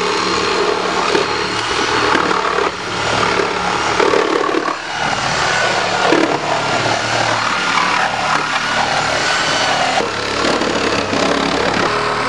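Reciprocating saw (Sawzall) cutting through a car body, running continuously with brief dips about three, five and ten seconds in.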